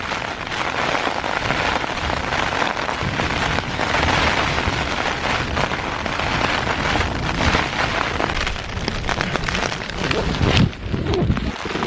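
Heavy rain pelting a tent's flysheet, a dense, steady patter, with a sharp slap a little past ten seconds in.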